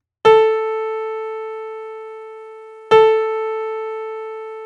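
The reference pitch A440, the A above middle C, struck twice on a piano-like keyboard, each note ringing and slowly fading, the second about two and a half seconds after the first.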